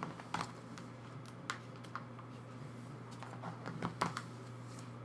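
Irregular light clicks and crinkles of plastic photocard sleeves and binder pages being handled.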